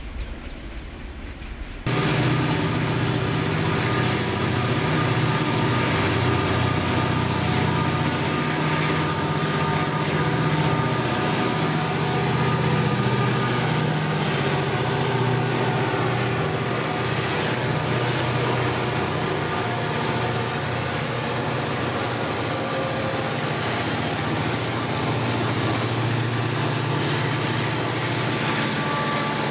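Diesel-electric freight locomotives passing under power. About two seconds in, a loud, steady engine drone takes over and holds while the locomotives and then the covered hopper wagons go by.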